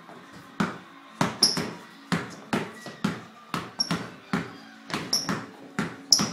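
Basketball dribbled hard on a hardwood floor in ball-handling drills: sharp thuds about two to three a second, in an uneven rhythm with some quick double bounces.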